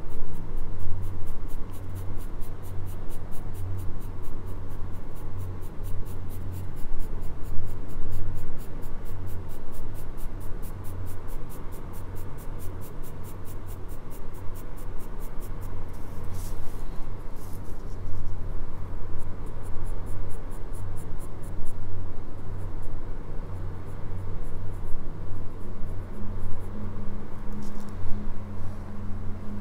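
Graphite pencil shading on paper: steady back-and-forth strokes rubbing the lead across the sheet, with a continuous low scratchy drone and faint evenly spaced stroke ticks.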